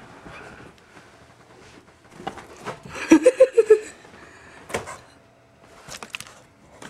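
Several sharp knocks and taps, with a short run of quick pulsed vocal sounds about three seconds in, the loudest moment.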